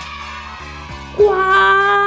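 Background music with steady low notes; about a second in, a voice starts a long drawn-out '¡guau!' howl that sinks slowly in pitch.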